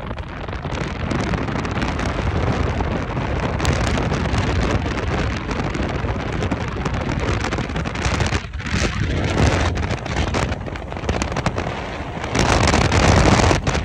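Wind buffeting the phone's microphone: a loud, unsteady rushing rumble that grows stronger about twelve seconds in.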